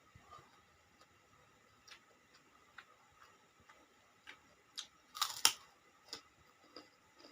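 Close-up eating noises: a person chewing, with scattered soft mouth clicks and a louder cluster of crisp clicks about five seconds in.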